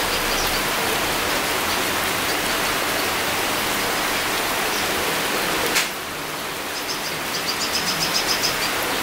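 Steady rain falling on leaves, an even hiss. Nearly six seconds in there is a single click, and the rain turns a little quieter before slowly building again.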